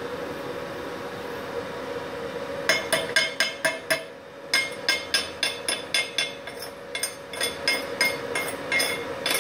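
Chipping hammer tapping slag off a short stick-weld bead on steel plate: a run of sharp, ringing metallic taps about four a second, starting nearly three seconds in with one brief pause. Under it is the steady hum of the powered-on inverter welder.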